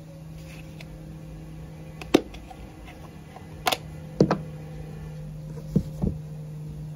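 A handful of short, sharp taps and pats from floured hands working at the table and dusting off flour, two close together about four seconds in, over a steady low hum.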